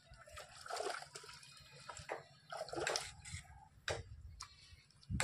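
Water splashing and sloshing in short, irregular bursts, with a sharp click about four seconds in.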